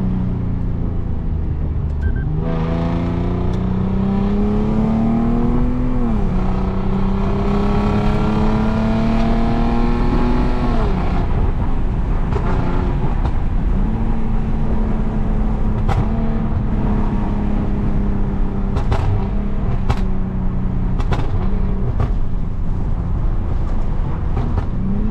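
Lexus IS250's 2.5-litre V6, running on an M-Force ECU tune with gutted catalytic converters, under a hard pull. The engine note rises through a gear, dips at an upshift about six seconds in, rises again, then falls away as the throttle is lifted. Off throttle it settles to a steady drone broken by a handful of sharp exhaust pops: the tune's pops and bangs on overrun.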